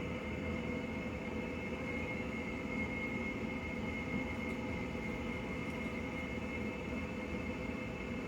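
Steady background hum and hiss with a faint high whine held throughout, like a fan or household appliance running; no distinct events.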